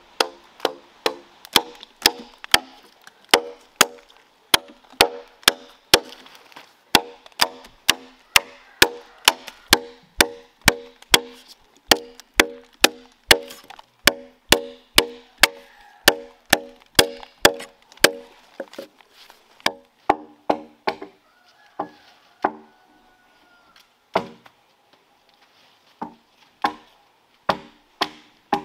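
An axe chopping into a freshly hewn log: steady blows about two a second, each with a short woody ring. The chopping stops for a few seconds about three-quarters of the way through, then starts again.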